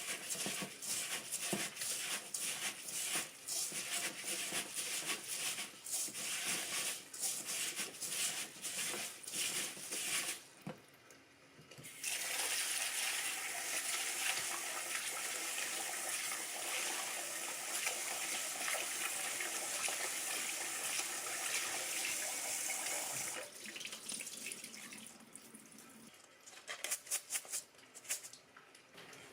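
Kitchen tap running into a sink while something is washed under it, with many quick knocks and clatters. The water stops for a moment about ten seconds in, then runs steadily for about eleven seconds before it is turned off. A few light clicks follow near the end.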